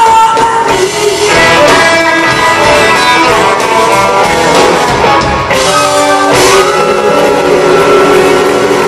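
Live rock band playing, with a woman singing over electric guitar and drums. About two-thirds of the way through, the band settles into long held notes.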